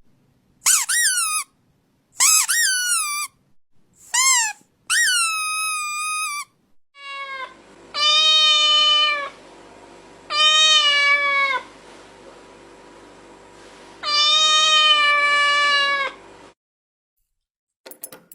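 Kittens meowing: first a run of short, high meows, each falling in pitch, then from about halfway lower, longer meows, three of them, over a steady low hum.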